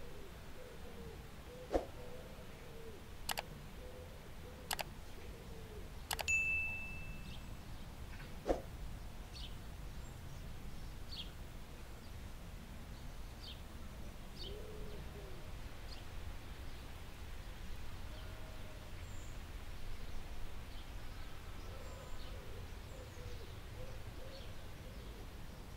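Metal measuring spoon clinking against a glass mixing bowl, five sharp taps in the first nine seconds as spices are knocked off it, one leaving a brief ringing tone from the glass.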